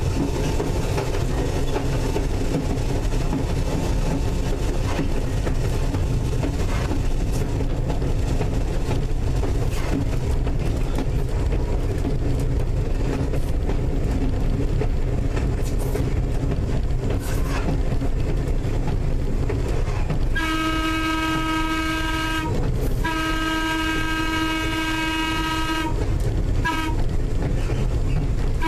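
Steady running rumble of North Shore Line interurban electric car 749, heard from inside the car, with wheels clicking over rail joints. About twenty seconds in its horn sounds two long blasts and then a short one, the start of the long-long-short-long signal for a road grade crossing.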